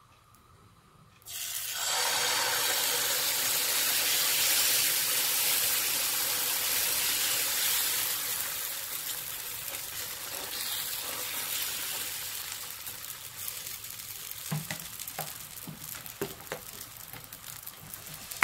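Wheat dosa batter sizzling as it hits a hot oiled dosa pan and is spread with a steel ladle. The sizzle starts suddenly about a second in, is loudest for the next few seconds, then slowly dies down, with a few light ladle taps and scrapes near the end.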